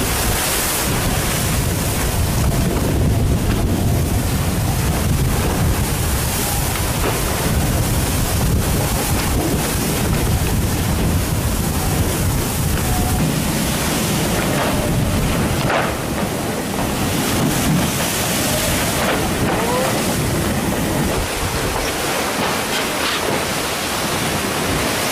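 Wind buffeting the microphone over the rush of water and spray as the maxi trimaran Spindrift 2 sails fast through rough seas; the low rumble thins out near the end.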